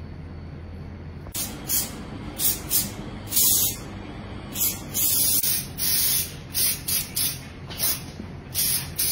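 Aerosol hairspray can sprayed onto a man's short hair in about a dozen short hisses, starting about a second in, a few of them held longer.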